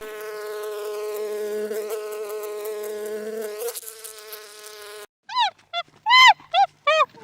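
A steady, insect-like buzzing drone for about five seconds, then it stops and a quick run of short, high, squeaky arched calls follows.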